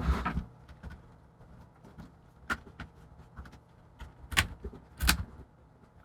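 Stiff plastic retaining clips of an Acer Aspire ES1 laptop's top case clicking as the case is pried away from its base, with faint plastic handling noise between. There are a few separate sharp clicks, the loudest two near the end.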